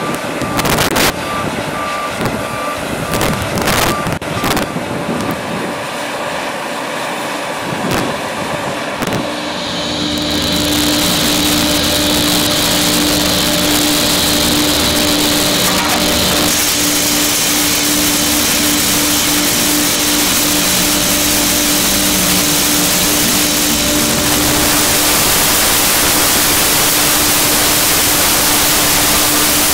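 Vehicle and wind noise with a repeated beeping and some knocks, giving way about ten seconds in to the steady hiss and low hum of mechanized flux-cored arc welding (FCAW) by an orbital bug-and-band welder on a steel pipeline girth weld.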